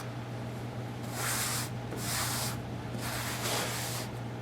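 Rubber grout float swiping premixed grout across the joints of vinyl tile, several swishing strokes each under a second, over a steady low hum.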